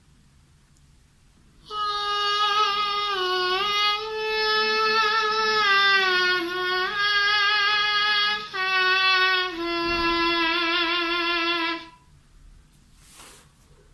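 A man's voice holding a high, reedy, sustained tone as a vocal sound effect. It bends down in pitch now and then, breaks briefly twice, and wavers in a vibrato near the end before cutting off.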